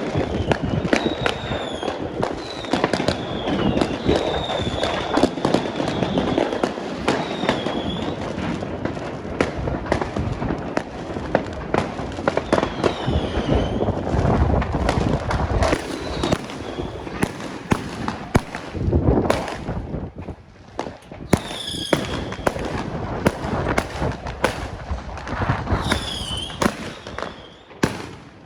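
Fireworks going off continuously: a dense run of bangs and crackling, with many short whistles rising and falling in pitch, several shells overlapping at once.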